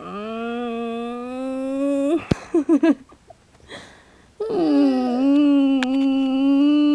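A person yawning aloud twice, each yawn a drawn-out, steady moan-like tone, the first about two seconds long and the second nearly three, with a few short broken sounds between them.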